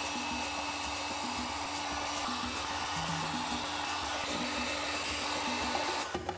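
Electric blower-type tool running with a steady rushing of air, cutting off suddenly just before the end, with background music faintly underneath.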